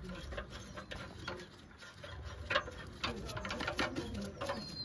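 A long flathead screwdriver working the Phillips-head hose clamps on a UTV's intake adapters: scattered clicks and light metal scrapes as the tip seats and turns. A bird calls in the background.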